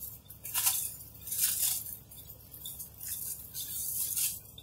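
Paper wrapping being pulled apart and crumpled by hand, rustling and crinkling in several short bursts with a longer stretch near the end.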